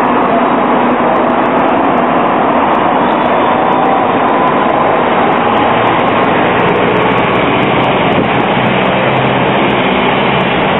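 Croydon Tramlink light-rail tram passing close by as it rounds a street curve: a steady running noise with a faint whine.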